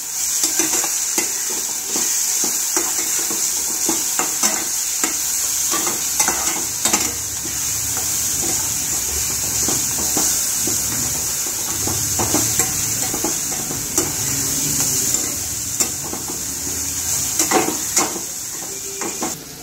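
Onion and green chilli-garlic paste sizzling in oil in a stainless-steel pan while being sautéed. A steel spatula scrapes and clicks against the pan over and over.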